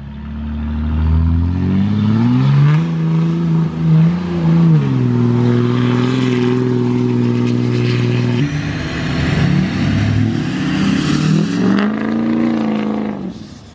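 Diesel pickup engines under hard acceleration: first a 2005 Dodge Ram 2500's Cummins turbo-diesel launching at full throttle, its pitch climbing a couple of seconds in, then dropping and holding steady. After an abrupt change about eight seconds in, a Ford Super Duty diesel pickup accelerates away, its engine pitch climbing again before the sound cuts off just before the end.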